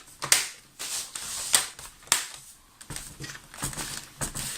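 Plastic front bezel of a Lenovo IdeaPad 110S laptop screen being pressed back on, its clips snapping into place in a series of sharp clicks, followed by softer clicks and handling.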